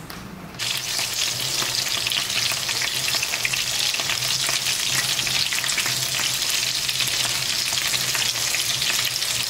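Betel-leaf-wrapped minced pork rolls (chả lá lốt) frying in hot oil in a pan, a dense steady sizzle full of fine crackles, as chopsticks turn them. The frying starts suddenly about half a second in, over a faint low hum.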